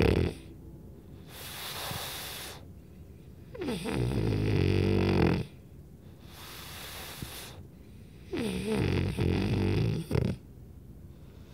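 French bulldog snoring in slow breaths: a low, rattly snore about every four to five seconds, alternating with an airy hiss of breath in between.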